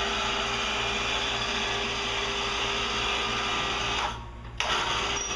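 Mower lift lowering its load: a steady rushing mechanical noise with a low hum. It cuts off about four seconds in and starts again about half a second later.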